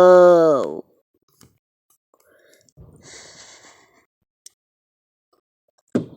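A child's long, drawn-out 'Whoa!' at the start, then faint low noise, and a single sharp firework bang near the end.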